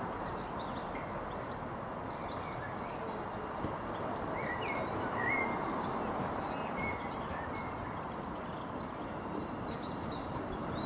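A saddle-tank steam locomotive rolls slowly toward the listener as a steady low rush, with no clear exhaust beats, while birds chirp and twitter in short calls throughout.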